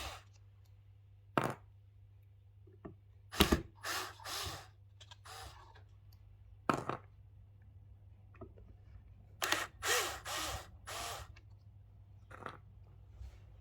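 Handling noise from working an 8-inch woofer out of a speaker cabinet: a string of irregular short knocks, scrapes and rustles, bunched in a cluster near the end.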